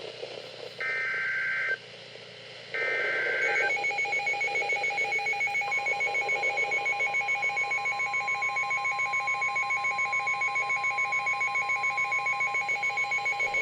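Emergency Alert System tones on NOAA Weather Radio, sent ahead of a severe thunderstorm warning. First come two short, shrill data bursts of the SAME header. Then a fast-pulsing alarm beep starts, and about two seconds later the steady 1050 Hz warning alarm tone joins it. Both run together until near the end.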